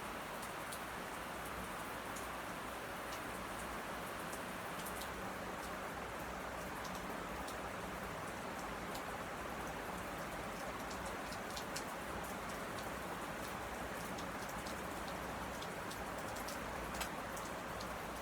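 Envirofan Heavy Duty Gold Line industrial ceiling fan running steadily at speed, a constant rushing of air from the blades with a few faint ticks here and there.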